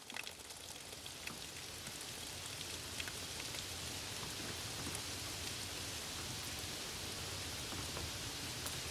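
Steady rain with scattered individual drops ticking out of the hiss, swelling in over the first few seconds and then holding even.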